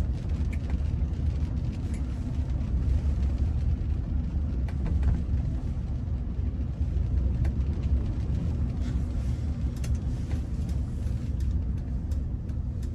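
Steady low rumble of engine and road noise inside a car's cabin while driving.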